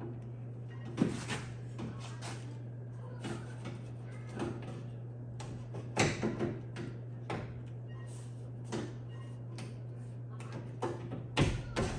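Scattered clicks and knocks of hand work, the loudest about a second in and about six seconds in, over a steady low hum.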